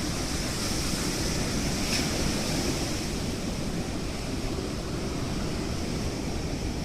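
Steady rushing noise of wind and rough water, with one faint tick about two seconds in.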